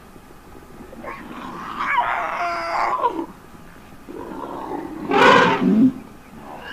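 African elephant calf stuck in mud, screaming in distress: two loud calls, the first about two seconds in and lasting over a second, the second, louder and harsher, about five seconds in.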